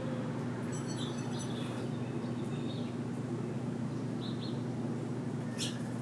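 Small songbirds giving several short, high chirps over a steady low background hum.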